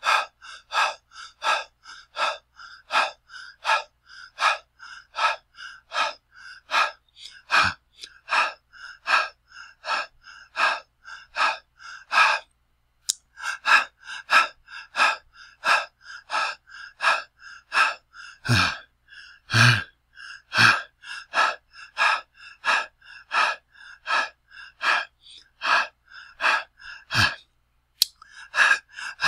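A person breathing heavily and fast through the mouth, in rapid, even in-and-out breaths, about two a second. There is a short pause about 13 seconds in, and a couple of louder, deeper breaths around 19 seconds.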